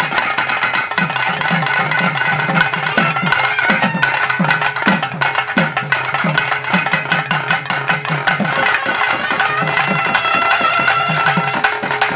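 Live Tamil folk music for a karakattam dance. Barrel drums are beaten fast and hard in a dense stream of sharp strokes, with low drum tones that drop in pitch. A held high melody line sounds over the drums.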